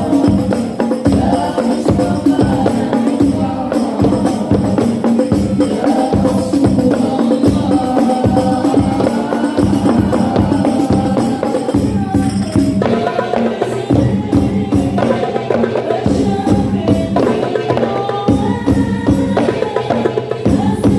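Islamic devotional music: voices singing a melody over hand-beaten frame drums and jingles keeping a steady rhythm.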